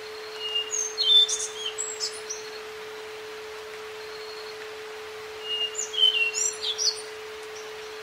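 A songbird sings two short bursts of high chirps and whistled notes, one soon after the start and one about two-thirds through, over a steady pure tone and a faint hiss of nature ambience.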